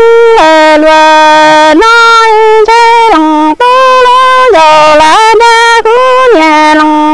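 Hmong kwv txhiaj sung poetry: a single voice holds long, level notes that step down and back up between a higher and a lower pitch, with short breaks between phrases.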